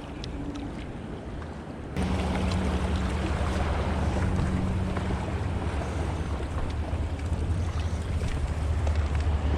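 Wind buffeting the microphone over choppy seawater washing against rocks, a steady noise with heavy low rumble that jumps abruptly louder about two seconds in.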